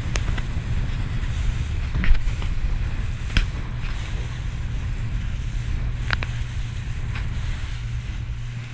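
Rigid inflatable boat running at speed: a steady low rumble of the boat's engine and wind on the microphone, with water rushing in the wake. A few sharp knocks cut through it, the loudest about two seconds in.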